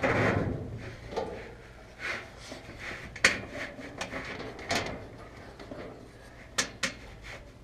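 Maytag Neptune dryer drum and belt being handled into place in the cabinet: a scraping rub near the start, then several sharp knocks and clicks of metal parts.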